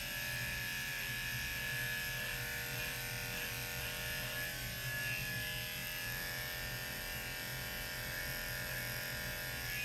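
Electric dog grooming clippers running steadily as they shave the matted coat off a Shih Tzu, a constant buzzing hum.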